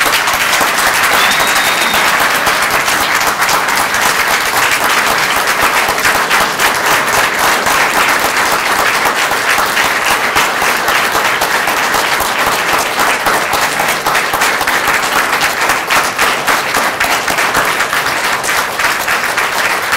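Audience applauding, breaking out suddenly and continuing at a steady, loud level.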